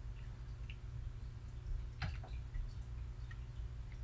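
A few computer keyboard keystrokes, two close together about two seconds in, over a steady low hum.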